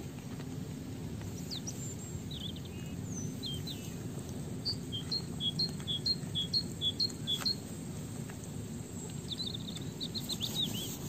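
Small birds chirping in the background, with a run of repeated two-note phrases, high then lower, lasting about three seconds in the middle, over a steady low background rumble.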